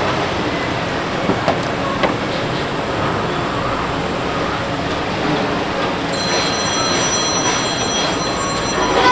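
Steady rushing background noise of a busy street food stall, with a few light clicks in the first couple of seconds. About six seconds in, a high, steady squeal of several tones together joins in and lasts for about three seconds.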